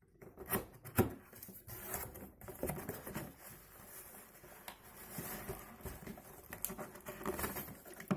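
Cardboard box being opened by hand: irregular rustling of the box and its paper contents, with scattered sharp taps and clicks.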